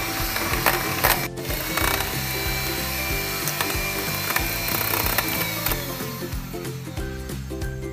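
Electric hand mixer running, its motor whining steadily and its beaters clicking against the bowl as they whip cream to stiff peaks. The motor fades out about six seconds in, leaving background music.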